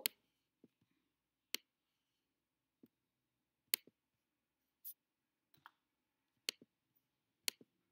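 Sparse, irregular clicks of a computer keyboard and mouse, about seven short sharp clicks spread over several seconds while an SQL statement is entered.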